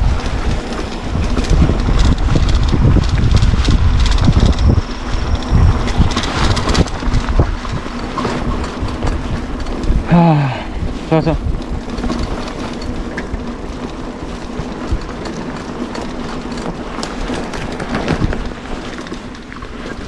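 Mountain bike riding down a rough dirt trail, heard from a camera mounted on the rider: wind rumbling on the microphone and the bike rattling over the bumpy ground, loudest in the first few seconds. About halfway through there is a brief wavering shout.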